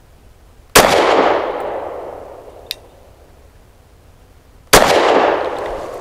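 Two shots from a Lone Wolf Arms Dusk 19 9mm pistol firing Wolf 115-grain steel-case ammunition, about four seconds apart, each echoing away over a second or so. A faint click falls between them.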